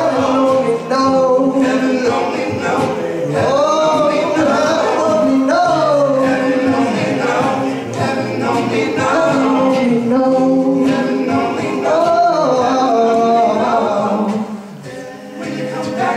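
Male a cappella group singing: a solo voice carries the melody over chords sung and held by the group behind it, getting softer about two seconds before the end.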